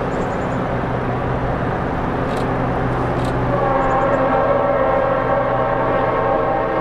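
Norfolk Southern GP38-2 diesel locomotives working hard in notch 8, with a steady heavy rumble of engines and wheels. About halfway through, the lead unit's Leslie RS5T five-chime horn starts a long held chord that runs on to the end.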